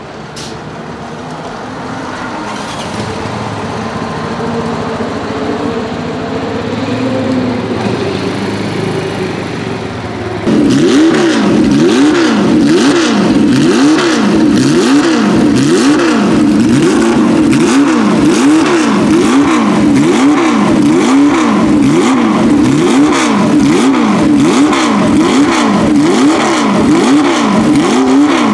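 Porsche 908/03's 3.0-litre air-cooled flat-eight racing engine running, growing gradually louder for about ten seconds. Then, much louder all at once, it is revved in quick throttle blips about once a second, each rising and falling in pitch.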